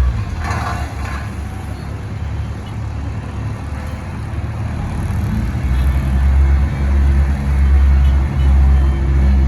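Diesel engines of heavy road-paving machinery running, a deep drone that eases off for a few seconds and then comes back stronger about halfway in.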